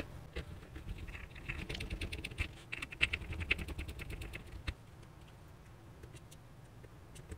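Rapid, faint clicking and ticking of small plastic parts as the opened Huawei mobile Wi-Fi router's housing is handled and fitted back together. The clicks thin out after a last sharp click about five seconds in.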